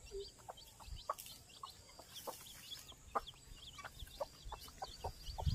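Newly hatched country-chicken chicks peeping softly, with a mother hen's low clucks. Faint irregular taps are scattered among the calls.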